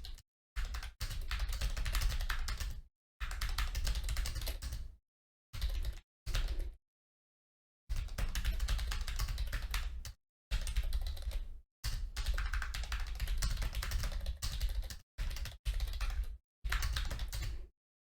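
Fast typing on an A4Tech Bloody B188 keyboard: rapid key clicks in runs of one to three seconds, broken by short pauses.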